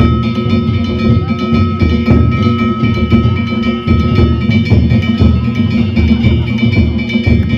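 Danjiri float's narimono: a large taiko drum and small hand gongs (kane) played together in a fast, dense rhythm, the gongs ringing on between strokes.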